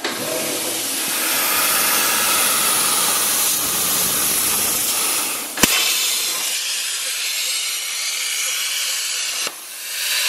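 CNC plasma cutter torch cutting aluminium sheet: a steady hiss of the plasma arc and its air jet, with a single sharp crack about halfway through.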